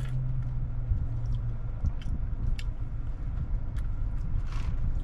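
Sipping a pink strawberry drink through a straw, with small mouth clicks and swallowing sounds scattered through, over a steady low rumble inside a car cabin.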